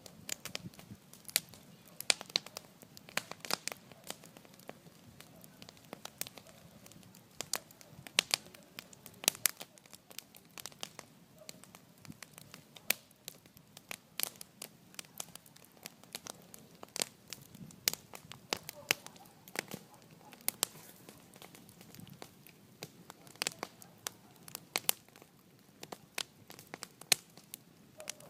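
Wood bonfire crackling, with a steady run of sharp, irregular pops and snaps of varying loudness.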